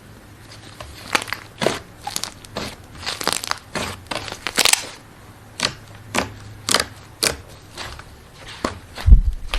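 Slime being pressed and squished by hand, giving a string of crisp crackles and crunches about once a second, with a low thump near the end.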